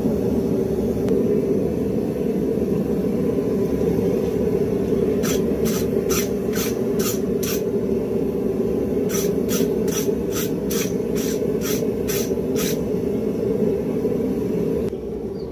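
Quick scraping strokes knocking forge scale off a hot steel razor blade, in two runs of about three strokes a second, over a steady loud roar.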